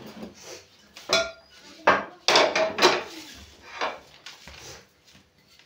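Metal cookware clanking as a cooked pot is moved off a gas burner and a flat iron tawa griddle is set down on it: a series of sharp clanks with brief metallic ringing, loudest about two to three seconds in.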